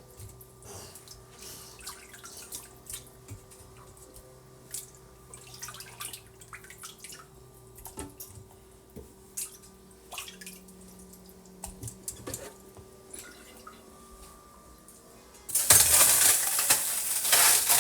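Scattered small clinks and knocks of dishes and utensils over a faint steady hum, then a kitchen tap turned on about three seconds before the end, running loudly into a sink.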